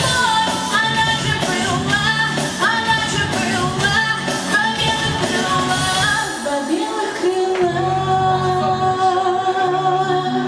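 Female vocalist singing a pop song over band accompaniment, holding one long note through the last few seconds.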